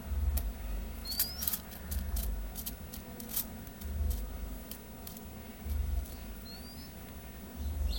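Ground dove pecking at cornmeal and bread on newspaper: irregular sharp taps, with dull low thumps every second or two and two short rising chirps, about a second in and near the end.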